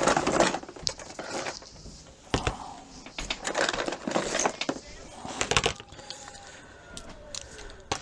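Irregular clicks, taps and clatter of small hard objects handled on a workbench: hand tools and a plastic meter case picked up and set down as a small screwdriver is got ready to open the meter.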